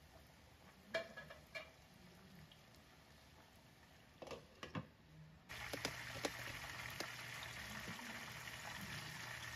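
Chicken deep-frying in hot oil in a pot: a faint sizzle with a few clinks of the pot's glass lid, then about five and a half seconds in the frying turns suddenly much louder, a steady sizzle with scattered pops and crackles.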